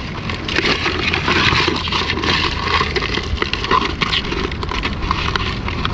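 Red rock crabs fighting in a bucket, their shells and claws scraping and clicking against each other and the bucket's sides in a dense crackle of small scratches and ticks, over a steady low rumble.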